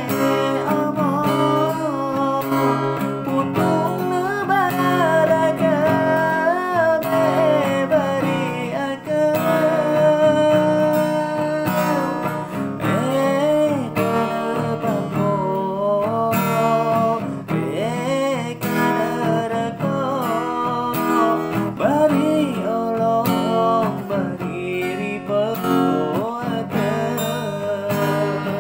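A man singing while strumming chords on a guitar, his voice carrying a wavering melody over the steady strumming.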